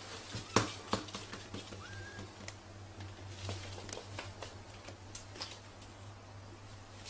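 Pug puppy's paws and claws tapping and pattering in irregular clicks on the laminate floor and the mirror as it scrambles about and paws at its reflection.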